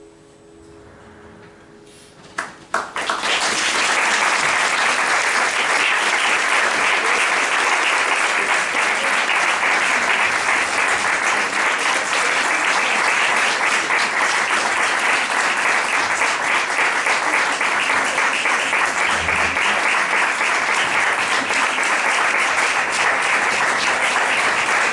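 The last notes of the music die away, then about two and a half seconds in a few claps start and an audience breaks into steady, sustained applause.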